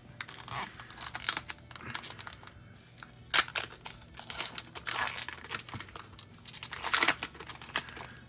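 Foil wrapper of a Pokémon card booster pack crinkling as it is handled and torn open. The rustles come unevenly, with louder ones about three and a half, five and seven seconds in.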